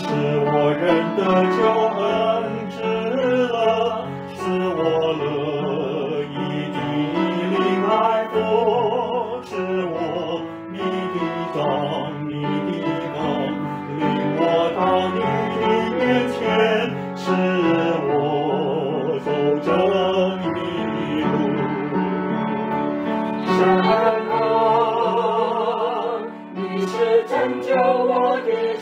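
A Mandarin worship song, sung in a voice with strong vibrato over sustained instrumental accompaniment.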